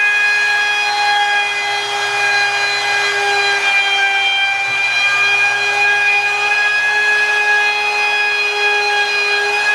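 Handheld electric router running at full speed, its bit cutting a bevel along the edge of a wooden boat panel: a loud, steady high whine.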